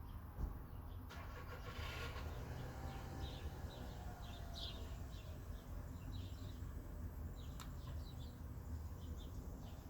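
Quiet background: a low steady rumble with short, high bird chirps repeating through most of it, and a single sharp click about half a second in.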